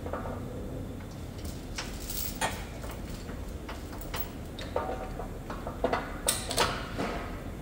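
Heavy steel pulling chain of a frame-straightening bench rattling and clinking as it is handled and hooked up. The irregular metal clinks come thickest about six seconds in.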